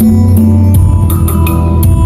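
A song with bass, guitar and drums and a steady beat, played from a TV's optical output through a Jnet HS202 24-bit DAC and a hi-fi amplifier as a demonstration of the DAC's sound.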